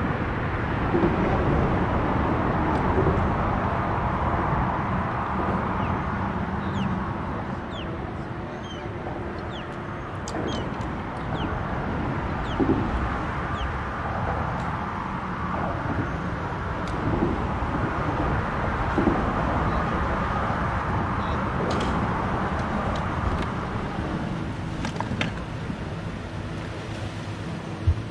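Steady low rumble of road traffic crossing the concrete highway bridge overhead, with a few faint high bird chirps.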